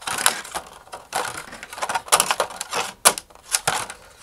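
Thin vacuum-formed plastic sheet crackling and clicking irregularly as it is flexed back and forth by hand, working a scored fairing free along its curved edge.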